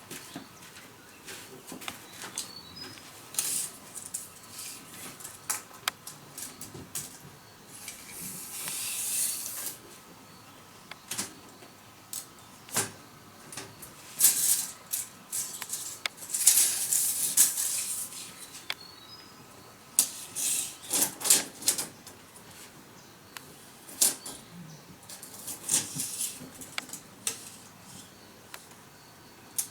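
Hand tools working wood: irregular taps and knocks, with several longer rasping scrapes.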